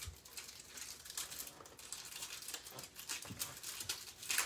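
Hockey trading cards being handled and flipped through by hand: a run of light clicks and crinkles, loudest just before the end.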